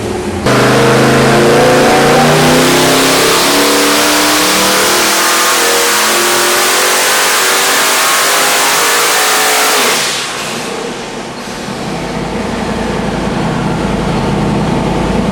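Twin-turbocharged Ford 428 small-block V8 making a wide-open-throttle dyno pull: it comes onto full load about half a second in and climbs steadily in revs for about nine seconds. Then the throttle closes and the engine falls back to a lower, steady running note.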